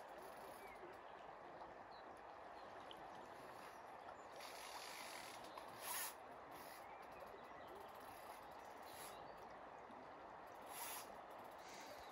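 Faint steady rush of river water, with a few short scratchy rasps at about four and a half, six, nine and eleven seconds in, the one at six the loudest.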